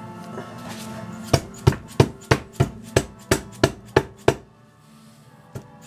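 Rubber mallet tapping on the shaft of a Toyota Tercel 4WD manual transmission: about ten sharp knocks at roughly three a second, then a pause with a couple of light taps near the end. The tapping drives the shaft through its bearing to break the case halves apart.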